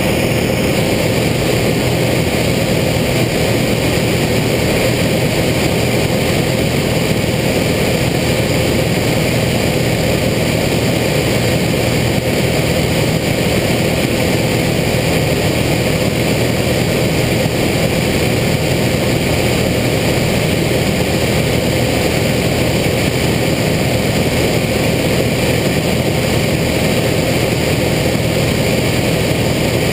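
Single-engine light aircraft's piston engine and propeller running steadily, heard loud inside the cabin.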